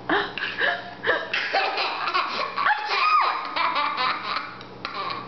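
Laughter in a run of short giggling bursts, with a higher squealing laugh about three seconds in.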